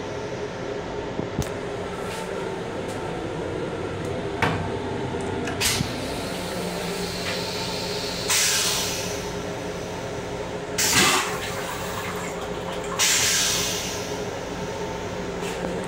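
Rail car toilet with a stainless-steel bowl flushing. A hiss of rinse water starts about eight seconds in, the bowl empties with a loud whoosh about eleven seconds in, and a second rinse hiss follows, all over the rail car's steady hum.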